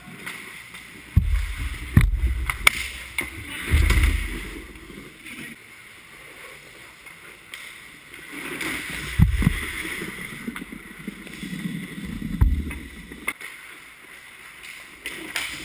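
Ice hockey play close to the goal: skate blades scraping and carving the ice, a few sharp clacks of stick and puck, and several dull low thumps, the loudest sounds, close to the net.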